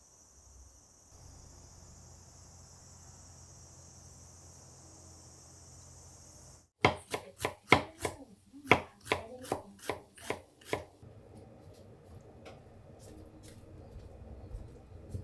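Kitchen knife chopping an onion on a wooden cutting board: about a dozen quick, sharp strokes over some four seconds, starting about halfway through. Before the chopping there is only a faint, steady high chirring of insects.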